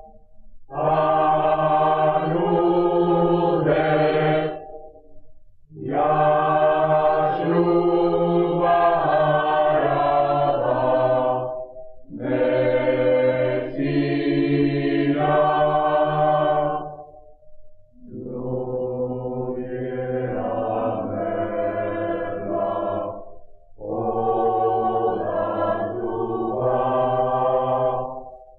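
Mixed choir singing from an old vinyl LP: five long sung phrases, each broken by a short breath pause, with no highs above the upper voices.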